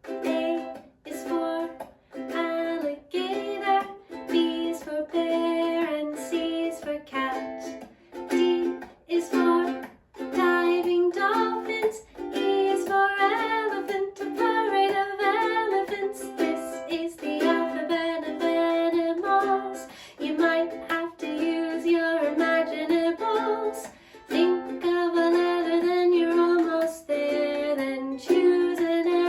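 Ukulele strumming chords in a steady rhythm as song accompaniment, with a voice singing over it at times.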